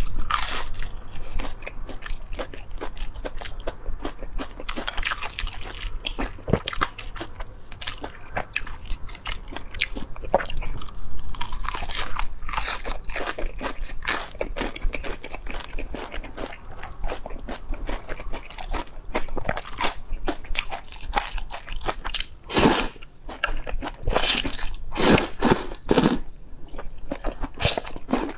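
Close-miked eating: crunchy bites and steady chewing of a battered fried slice, with dense crackles and mouth clicks. Near the end come several louder strokes as noodles are drawn up into the mouth.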